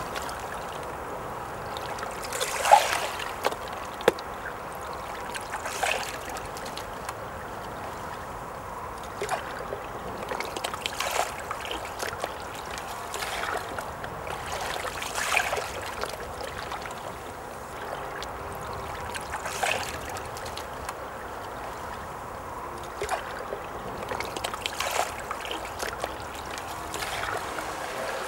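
Water trickling in a stream, with small splashes every second or two.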